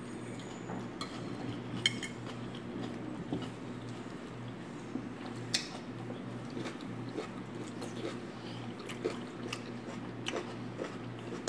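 A metal fork tapping and scraping on a plate of food as it is picked up and eaten: scattered sharp clicks, the loudest about two seconds and five and a half seconds in, over a steady low hum.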